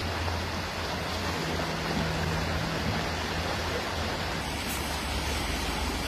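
Fast-flowing floodwater rushing and churning, a steady wash of water noise from a river in spate after heavy storm rain, with a low steady rumble underneath.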